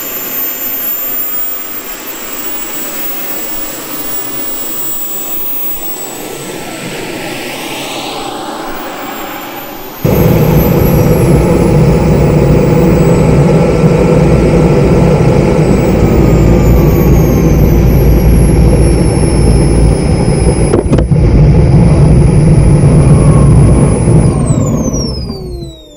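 Model jet turbine engine taken from an RC plane, running kerosene, with a steady high whine; it becomes suddenly much louder about ten seconds in. Near the end the whine falls steeply in pitch and dies away as the turbine shuts down and spools down.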